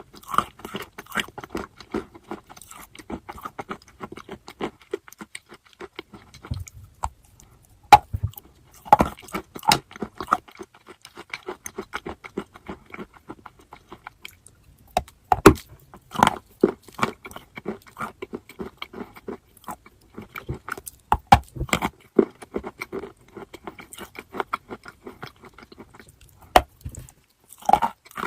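Crunchy chalk being bitten and chewed: a dense, irregular run of crackling crunches, with several louder sharp bites scattered through.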